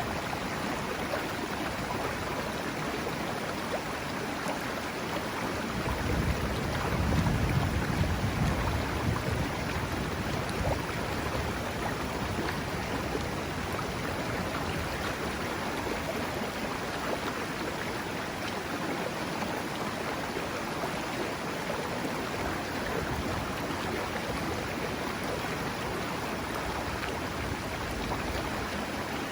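River water flowing, a steady rush. A low rumble swells for a few seconds, about six seconds in.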